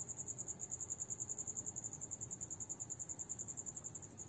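Cricket chirping steadily in the background: a high, rapidly pulsing trill, about a dozen pulses a second.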